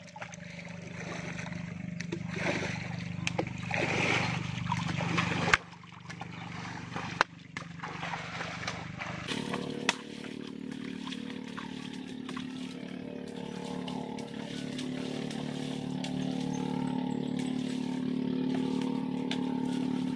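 Water sloshing and splashing as a person wades through a shallow pond. Underneath is a steady low hum, which gets louder and fuller about nine seconds in.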